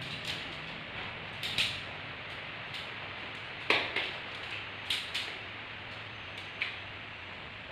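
Aluminium (duralumin) tent pole sections clacking and snapping together as the folded pole is shaken out and assembled: a string of separate sharp metallic clicks, the loudest a little under four seconds in, with a short room echo.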